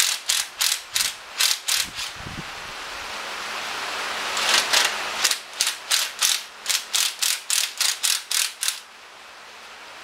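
Hand ratchet wrench clicking as a fastener on the VW engine case is turned, in two runs of about three clicks a second. The second run is longer and stops near the end.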